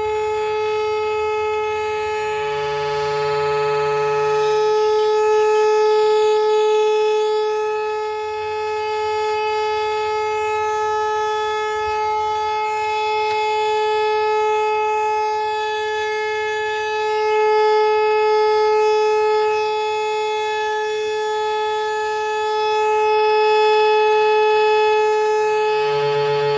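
A horn sounding one long, steady note, held without a break and swelling in loudness a few times, with a fainter low hum coming and going underneath.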